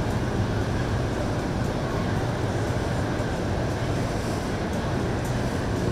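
Boat engine running steadily, a low hum with a noisy wash over it.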